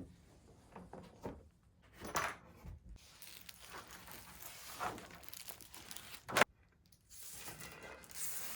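A picture frame being handled: scattered light clicks and knocks with some rustling, and one sharper knock about six seconds in.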